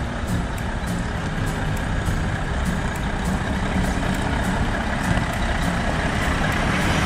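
Heavy diesel engines running steadily, from a wheeled excavator and the dump truck it is loading.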